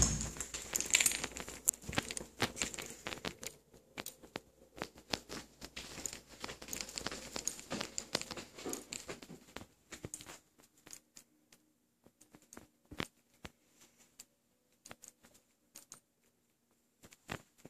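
Scattered clicks and rustles of a hand-held camera being carried and handled, dense at first, then thinning out to a few isolated clicks over a faint steady hum in the second half.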